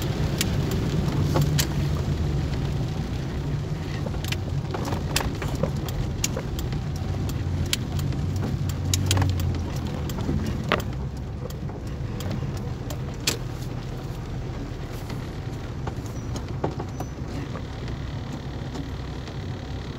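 Inside a car driving slowly in the rain: low, steady engine and road rumble that eases a little about halfway through, with scattered sharp clicks and ticks over it.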